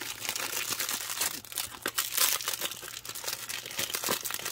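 Thin clear plastic bag crinkling continuously as the boxed printer is worked out of it by hand: a dense run of quick crackles.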